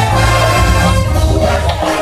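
Marching band playing a funk medley: brass and drumline with a strong steady low end.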